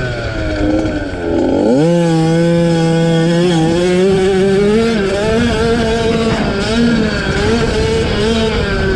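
50cc two-stroke youth motocross bike engine: the revs sag briefly, then the throttle is opened sharply under two seconds in and the engine holds at high revs, the pitch wavering slightly.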